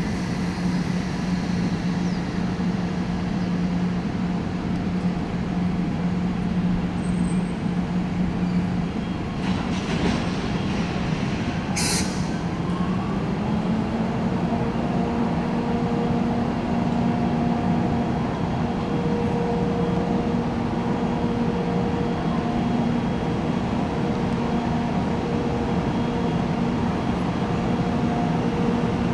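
EF64 electric locomotive humming steadily as it starts a container freight train away from a standstill. The hum steps up in pitch about thirteen seconds in and then holds, with a brief sharp hiss just before.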